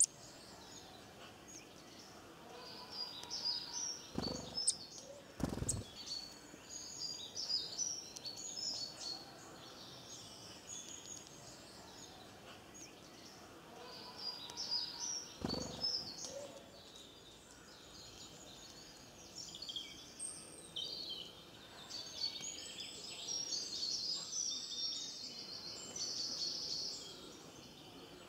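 Small songbirds singing in bursts of high, quick twittering phrases. Three dull low thumps come about four, five and a half and fifteen seconds in.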